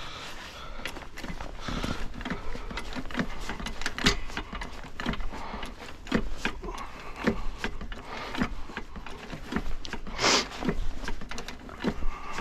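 Floor jack being pumped by its handle, with a click or knock at each stroke, over a low rumble of wind on the microphone. A louder scraping burst comes about ten seconds in.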